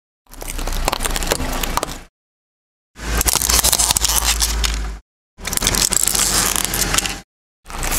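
A car tyre rolling slowly over brittle objects on gritty asphalt: crunching and crackling with many sharp snaps. The sound comes in four short bursts, each cut off abruptly by silence, and the middle burst carries a steady low rumble.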